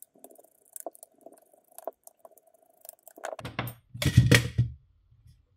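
A precision Torx screwdriver turning small screws out of the plastic base of an Echo Dot, with faint clicks at first. About three and a half seconds in comes a louder burst of knocks and rattles as the screws and driver are handled and set down.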